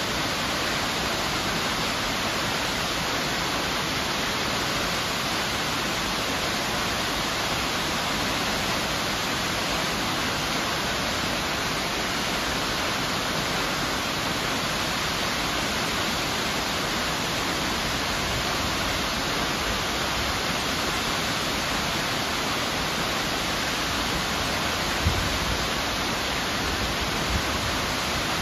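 Miners Falls, a tall waterfall dropping into a rocky gorge, rushing with a steady, unchanging hiss of falling water. A couple of low bumps come near the end.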